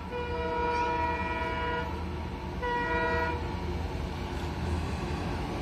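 Locomotive horn sounded twice as a train approaches: a long chord-like blast of about two seconds, then a shorter blast about a second later. A low rumble of the approaching train runs underneath.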